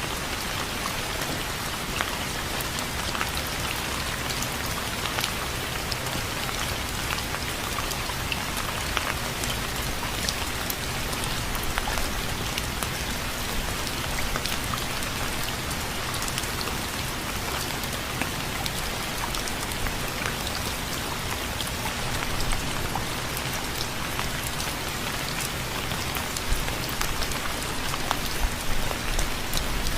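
Steady rain falling, an even hiss dotted with many separate drop ticks. A few louder drops hit near the end.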